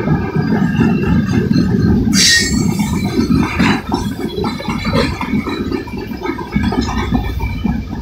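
Freight cars of a BNSF manifest train rolling past at close range: a heavy steady rumble of wheels on rail with many irregular clanks and rattles, and a brief sharp high-pitched screech about two seconds in.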